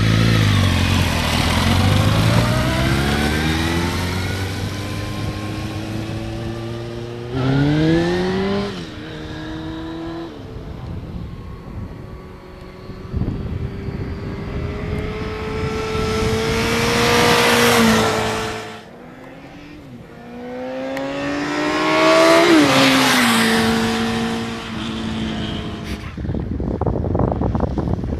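A Suzuki sport motorcycle towing a small trailer, its engine revving up through the gears several times and passing close by at speed. In the last seconds this gives way to a noisier rush of wind and engine.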